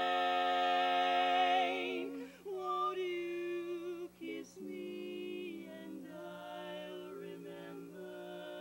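Women's barbershop quartet singing a cappella in four-part close harmony: a loud held chord for about two seconds, then softer, shorter phrases.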